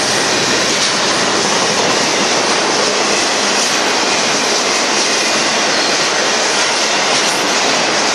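Loaded freight cars of a Union Pacific merchandise train rolling past at a crossing: the wheels on the rails make a steady, loud, continuous noise.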